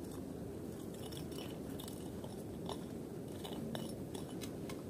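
Snow crunching in short, irregular crackles as boots step through deep snow, over a steady low hiss of wind.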